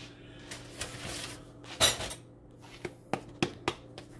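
Pizza dough being handled on a flour-dusted wooden cutting board: one loud knock about halfway through as the dough ball is set down on the board, then a quick run of light knocks as the hands press and shape it.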